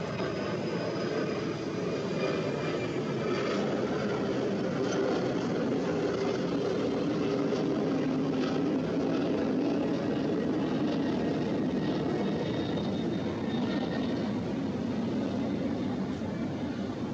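Jet airliner engines running at high power as the plane passes, a steady roar with a faint high whine. The roar swells to its loudest about halfway through, then eases slightly.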